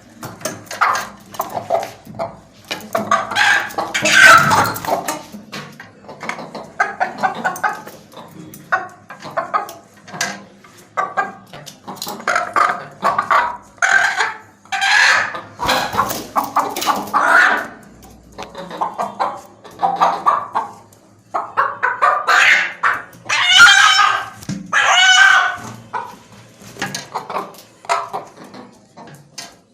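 A hen calling over and over: a string of short clucks, with longer, louder calls a few seconds in and again about three-quarters of the way through.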